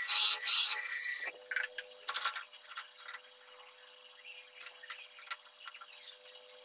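Milling machine end mill cutting a metal shaft: a loud harsh cutting noise for about the first second, then quieter scraping with a few short high squeaks, over a steady machine hum.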